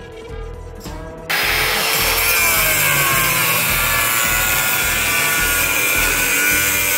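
Background music, then about a second in an angle grinder with a cut-off disc starts cutting through a steel plate: a loud, steady grinding with a whine that wavers in pitch as the disc bites.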